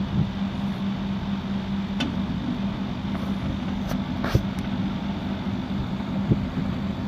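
Split air conditioner's outdoor unit running under load, a steady compressor hum with the condenser fan, while it is being charged with R32 refrigerant. A few faint clicks come about two and four seconds in.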